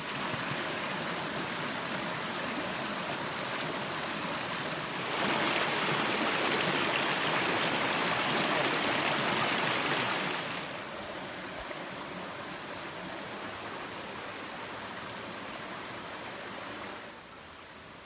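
Creek water rushing over rocks in a steady wash. It grows louder about five seconds in, where the water runs white past a boulder, and falls back about ten seconds in, dropping a little again near the end.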